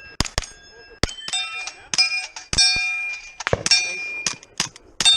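A rapid string of pistol-caliber carbine shots, with steel targets ringing on the hits. A sharp crack or a ringing clang comes every fraction of a second, and many clangs hang on as a clear metallic ring.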